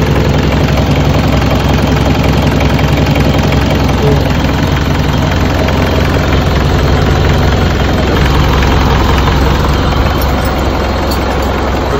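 2009 Mitsubishi Montero Sport's engine idling steadily, running on a freshly fitted timing belt and water pump.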